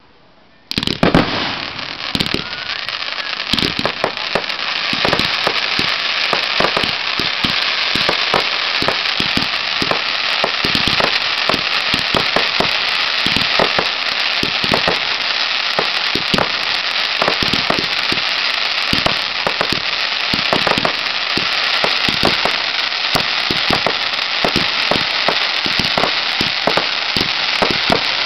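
Fireworks: a sudden loud bang about a second in, then a continuous dense crackle and hiss packed with rapid sharp pops.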